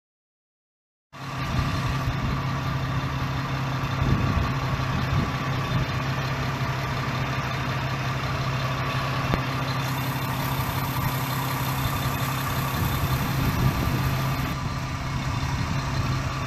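GM 3.6-litre High Feature V6 in a Chevrolet Camaro idling steadily, reassembled after a timing chain and head gasket replacement. The idle cuts in abruptly about a second in.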